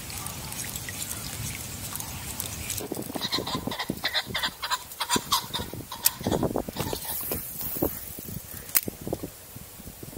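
Waterfowl calling: a run of short, repeated calls between about three and seven seconds in, over a steady low background.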